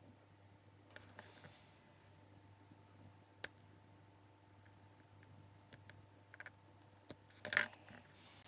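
Small hard objects being handled on a workbench: scattered light clicks and taps, with a brief louder clatter about seven and a half seconds in, over a faint steady hum.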